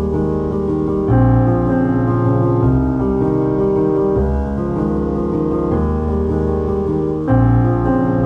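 Background piano music: held chords over low bass notes, with a new, louder chord about a second in and again near the end.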